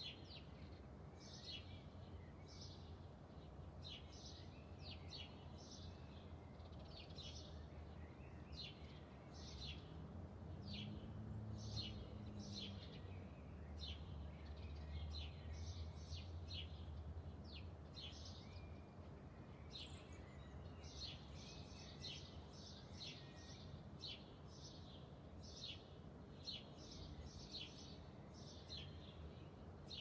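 Songbirds chirping in a steady series of short, high, falling notes, one to three a second, over a faint low rumble that grows louder for several seconds in the middle.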